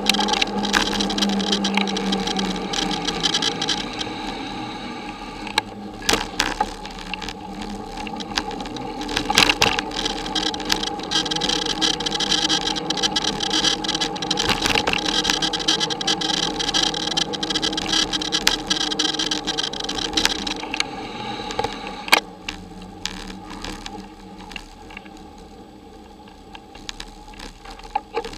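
Bicycle rolling, a steady hum of tyre and drivetrain noise picked up by a camera mounted on the bike, with sharp rattling knocks over bumps. It grows quieter over the last several seconds as the bike slows.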